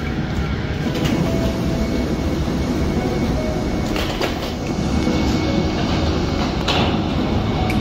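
Steady low rumble and hiss of jet bridge and parked-airliner ambience, with a few sharp knocks.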